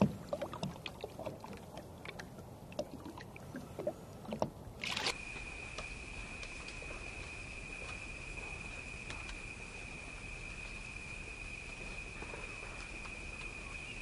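Small splashes and water lapping at the surface. About five seconds in, these cut off abruptly into a steady, unbroken high-pitched insect trill, like a cricket's, over a faint outdoor background.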